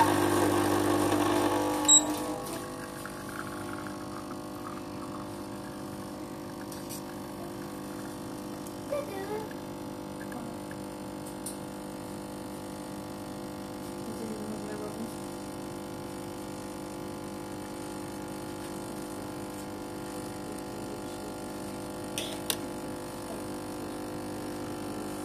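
Gaggia Viva Deluxe espresso machine's vibratory pump running through a shot. It is louder for the first couple of seconds, then after a sharp click settles into a steady, quieter hum as the shot pours.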